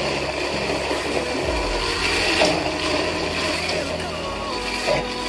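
Electric countertop blender running steadily, its motor grinding a thick mash of tempeh and fish thinned with a little cooking water.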